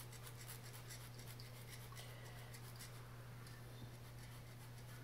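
A wedge of hard Parmigiano Reggiano cheese is grated on a rasp-style grater, giving repeated faint rasping strokes over a steady low hum.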